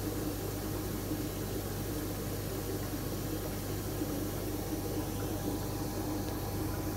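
Aquarium filtration running: a steady hum with bubbling, splashing water, unchanging throughout.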